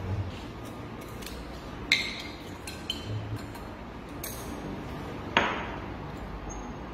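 Glass beakers clinking and knocking on a tabletop as they are handled: a few light clinks, the two loudest sharp knocks with a brief ring about two seconds and five and a half seconds in.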